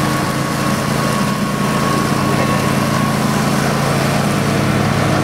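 Older Garden Way Troy-Bilt riding mower with a 14 horsepower Briggs & Stratton Vanguard V-twin, running steadily while mowing tall grass.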